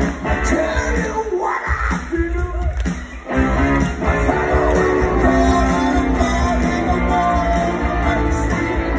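Rock band playing live, with a lead singer, electric guitars, bass and drums, recorded from the audience. The low end drops away briefly in the first few seconds, and the full band comes back in about three seconds in.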